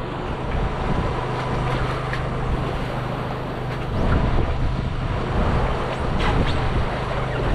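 Steady engine hum from a fishing boat, with wind rushing on the microphone.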